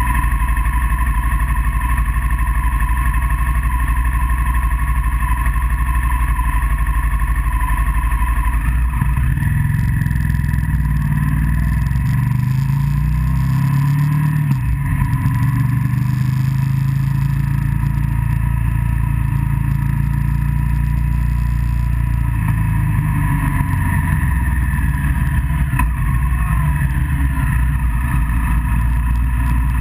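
Motorcycle engine running while riding, heard from a camera mounted on the bike. The engine note rises and falls through the middle stretch as the revs change.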